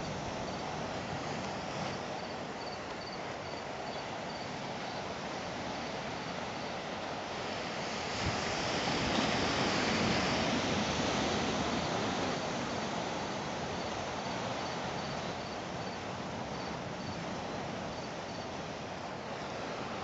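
Steady surf and wind noise, swelling about eight seconds in and easing a few seconds later. A faint, high chirp repeats evenly about twice a second for a few seconds early on and again later.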